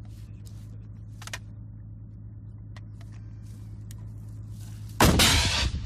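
An engine running steadily with a low hum and a few faint clicks. About five seconds in, a sudden loud burst of noise that dies away within a second.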